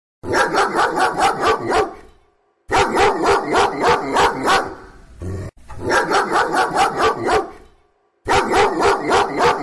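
Dog barking in quick runs of about four barks a second: four runs of about two seconds each, separated by short pauses.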